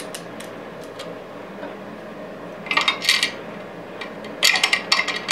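Light metallic clinking and rattling in two short bursts, about three seconds in and again near the end, from small metal parts and wire leads being handled at an electric motor's junction box.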